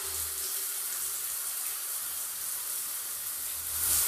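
Shower running: a steady hiss of falling water, louder near the end.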